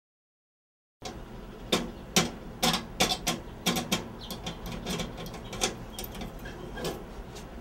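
Keys jingling and scraping in the lock of a metal cluster mailbox, a run of irregular sharp metallic clicks and small knocks starting about a second in.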